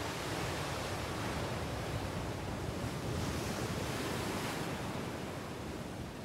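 Sea waves washing in a steady hiss of surf, swelling a little about halfway through.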